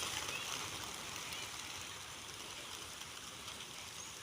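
A large flock of racing pigeons flying off together just after release: a dense, rushing whir of many wingbeats that slowly fades as the flock moves away.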